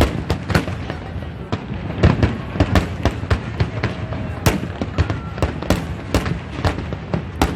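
Fireworks display: a rapid, irregular run of bangs and crackling pops, many overlapping, with faint voices of onlookers underneath.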